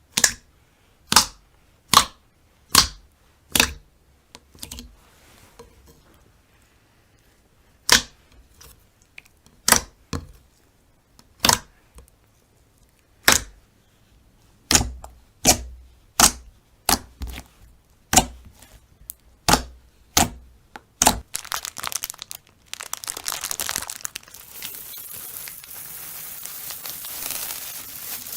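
Slime being pressed and squeezed by hand, letting out a string of sharp air-bubble pops, one every second or so. Near the end it turns into a continuous crackling squish.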